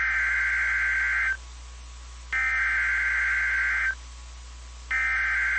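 Emergency Alert System SAME header: bursts of rapid two-tone digital data warble, repeated identically, about a second and a half each with a second's gap. Two full bursts sound, and a third starts near the end. This is the coded header that announces a new alert's type, area and time, sent three times before the attention tone.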